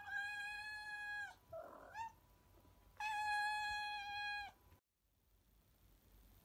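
A cat meowing: two long, drawn-out meows held at an even pitch, with a short rising chirp between them. The sound stops abruptly near the end, leaving faint room tone.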